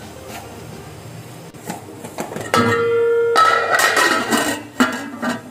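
Stainless-steel lid put onto a steel cooking pot. About two and a half seconds in it lands with a sudden clang and rings with a brief held tone, then scrapes and clatters against the rim, with two sharp clinks near the end.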